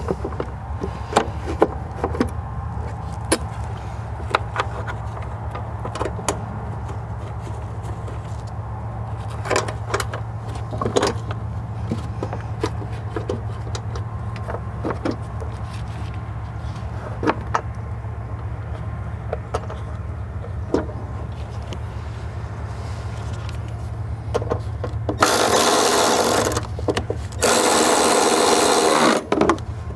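Plastic battery box being fitted and handled, with scattered clicks and knocks. Near the end an electric ratchet runs in two bursts of about a second and a half each, driving down a bolt.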